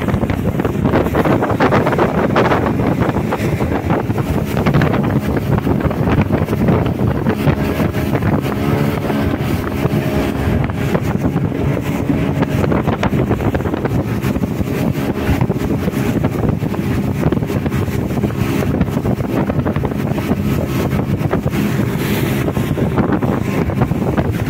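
A motorboat's engine running steadily while the boat is under way, with wind buffeting the microphone.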